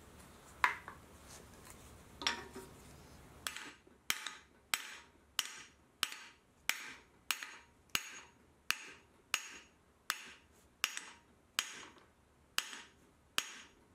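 Hammer tapping a seal driver to drive the inner axle seal into an AMC 20 axle tube. Two single taps come first, then from about three and a half seconds in a steady run of taps, a little under two a second, each with a short ring.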